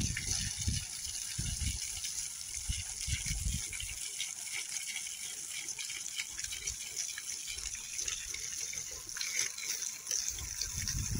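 Borewell water, lifted by compressed air, gushing out of a hose in a broken spray, heard as a steady hiss. Uneven low rumbling comes and goes in the first four seconds and again near the end.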